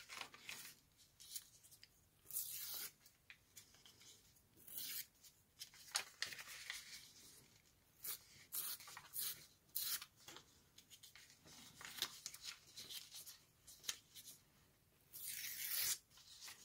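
Paper being torn: several short rips as strips are pulled off the edge of a stack of journal pages, with paper rustling between them.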